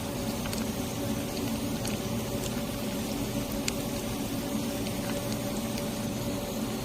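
Steady machine hum with a few faint, scattered ticks.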